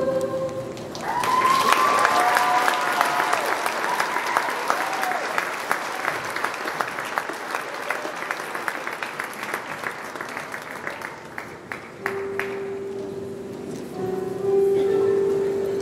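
Graduation crowd applauding as a sung piece ends, with cheers rising over the clapping in the first few seconds. The applause thins out, and about twelve seconds in a steady held note of music starts and grows louder near the end.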